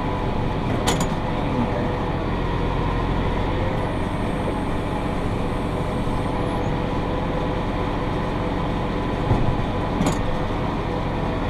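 Massey Ferguson 5610 tractor running steadily under load while pulling a John Deere 468 round baler through the hay at a fast working speed. Two sharp clicks, about a second in and near the end.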